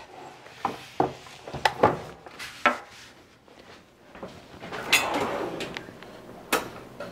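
Kitchen handling sounds: a few light knocks and clicks, then a few seconds of rustling and sliding with sharp knocks, as a kitchen drawer is opened and shut.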